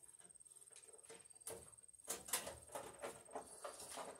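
Faint clicks, knocks and scrapes of sheet metal as a bathroom exhaust fan's housing is worked into its mounting track. The clicks come in quick irregular runs from about a second and a half in.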